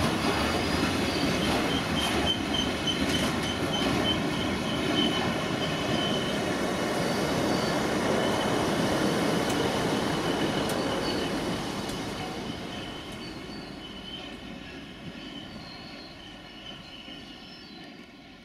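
Freight train of bogie coal hopper wagons rolling past, wheels rumbling over the rails with a steady high squeal. About two-thirds of the way through the sound starts to fade steadily as the tail of the train draws away.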